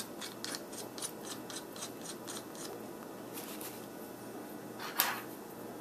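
A nut being spun by hand onto the screw that holds a round metal plough blade to a wooden handle block. It makes quick, even little metallic clicks, about four a second, for the first two and a half seconds, then one louder scrape about five seconds in.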